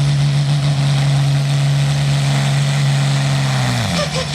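Light pro field pulling tractor's engine running hard at a steady high pitch, then winding down sharply in pitch near the end as the throttle comes off.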